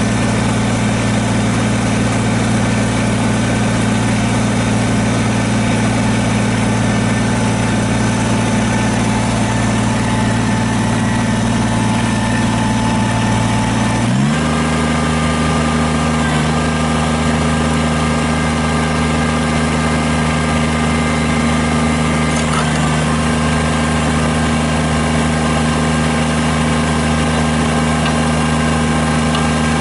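Kubota BX23S subcompact tractor's three-cylinder diesel engine running steadily, stepping up to a higher engine speed about halfway through and holding there.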